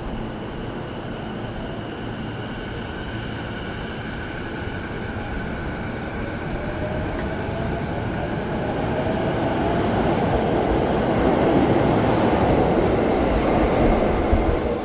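Electric commuter train running at the station platform, growing louder over the last several seconds. Steady high squealing tones and a faint rising whine run over the rumble of the wheels.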